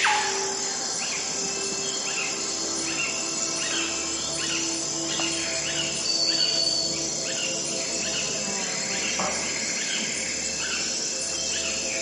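Dawn nature soundscape: birds chirping in short falling calls that repeat every half second or so, over a steady high insect trill. A soft sustained synthesizer drone is held underneath.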